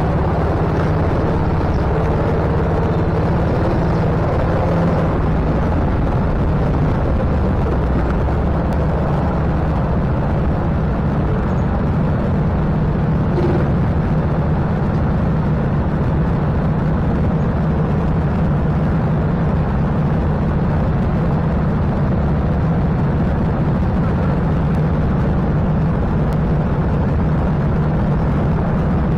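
Go-kart engines running steadily, a constant low drone with no revving up or down.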